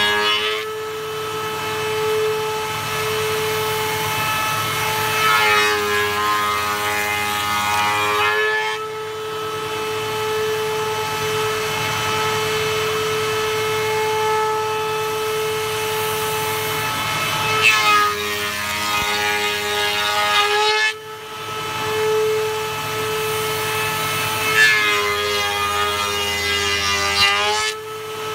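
Woodworking shaper (spindle moulder) running with a steady whine. Several times it cuts into the edge of a wooden door panel fed past the cutter, each pass a harsher cutting sound lasting about three seconds.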